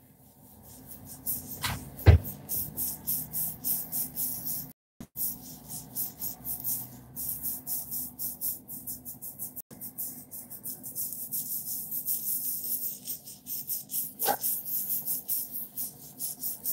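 Fingers rubbing and scrunching short, tightly curled hair coated with conditioner, close to the microphone: a quick, rhythmic rustling rub. A short sharper sound stands out about two seconds in, and another near the end.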